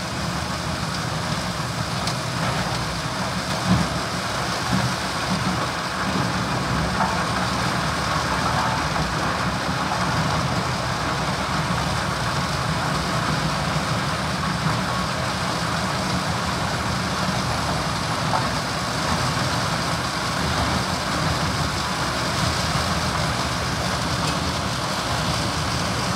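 Large self-propelled wood chipper working under load, chipping logs fed in by its crane and blowing the chips out of its spout, with a tractor engine running alongside. A steady, dense din, with a couple of sharp knocks about four and five seconds in.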